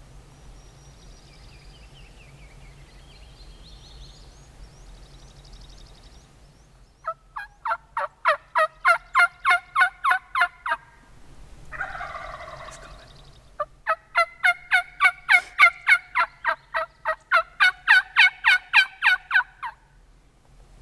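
Turkey yelps in two long, loud runs of about four notes a second, with a short rough call in the gap between them. Faint songbird song is heard before the yelping starts.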